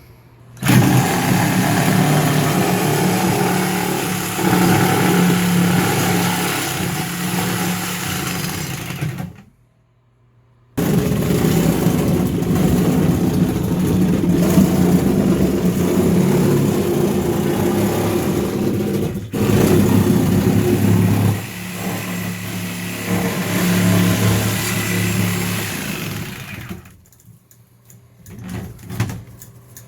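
Power saw cutting through a fiberglass bathtub wall, the motor running under load in two long runs with a short stop about nine seconds in, then dropping away near the end.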